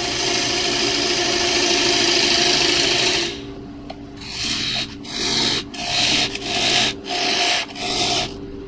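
A gouge cutting walnut on a spinning Powermatic lathe, over the lathe's steady hum. The first cut runs continuously for about three seconds, then comes a quick run of short cuts, each about half a second long.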